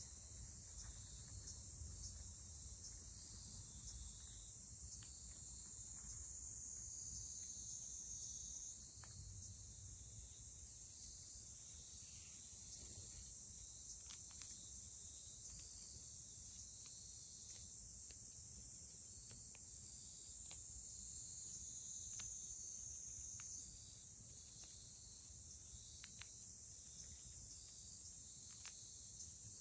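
Insects chirring steadily in a high-pitched drone that shifts slightly about nine seconds in and again about twenty-four seconds in, with a faint low rumble underneath.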